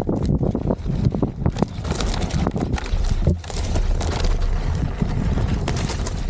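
Electric unicycle tyre rolling over a rough, stony dirt trail, with irregular knocks and crunches, under heavy wind rumble on the microphone.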